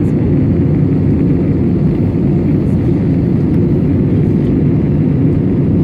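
Airbus A320-200 cabin noise: a steady low rumble of the jet engines and airflow around the fuselage.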